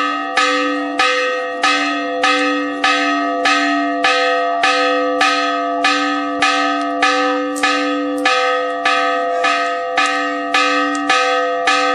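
Church bell rung rapidly and evenly, about one stroke every 0.6 seconds, each stroke ringing on into the next. It cuts off suddenly at the very end.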